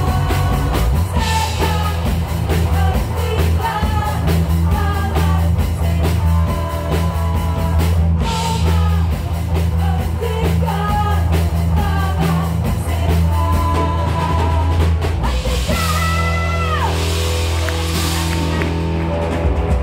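Live rock band playing: electric guitar, bass guitar and drum kit under sung vocals, with a strong steady low bass. About sixteen seconds in, a long held note bends down at its end.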